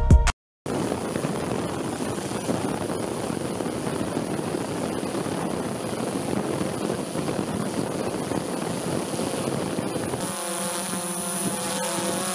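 Steady rushing aircraft noise with a thin high whine. About ten seconds in it changes to a steady hum of several engine tones.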